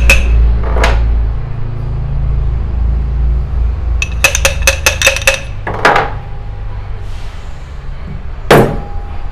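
Light hammer taps on the metal cap of an old shock absorber, seating the cap on the tube: a few scattered knocks, then a quick run of about six ringing metallic taps around four to five seconds in, and one last louder knock near the end. A low steady hum runs underneath.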